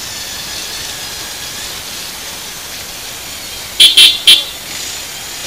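Steady wind and road noise of a motorcycle under way, then three short, loud horn toots in quick succession about four seconds in.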